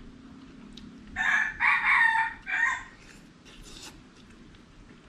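A rooster crowing once, about a second in: a single crow of about two seconds in three parts.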